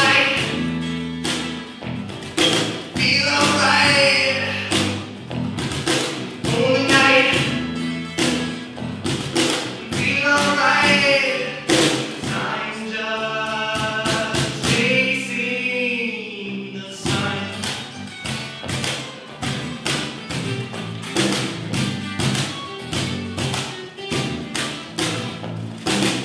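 Live band with a male lead vocal over two acoustic guitars, an electric bass and a steady beat on a Kopf cajón. The singing is strongest in the first half and drops back after about sixteen seconds, leaving the guitars, bass and cajón.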